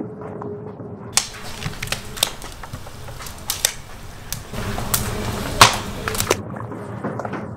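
Hot cast-iron pan sizzling and crackling, with many sharp pops and clicks over a hiss; it starts about a second in and cuts off abruptly near the end.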